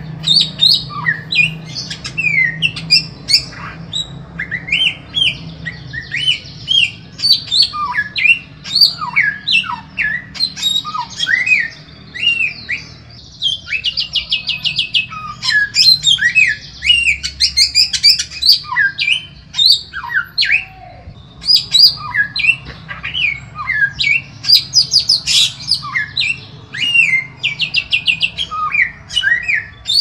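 Samyong songbird singing a continuous rapid stream of short sweeping chirps and whistles, broken now and then by fast buzzy trills. A low steady hum runs underneath. This is a masteran song recording, the kind played to tutor caged songbirds.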